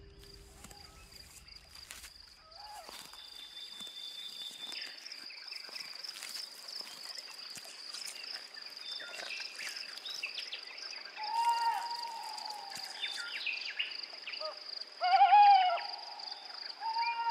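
Night ambience: a steady, high insect trill like crickets, scattered small chirps, and an owl hooting three times, about eleven, fifteen and seventeen seconds in, the second hoot the loudest.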